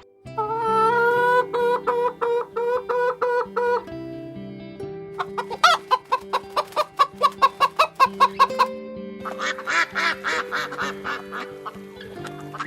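Domestic fowl calling in three runs of quick, repeated clucking notes, the middle run at about four calls a second, over steady background music.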